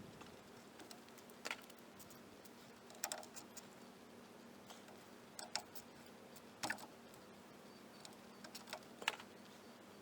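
Scattered light metallic clicks and taps of hand tools and bolts being handled while a new drum-brake wheel cylinder is fitted, some in quick pairs or threes.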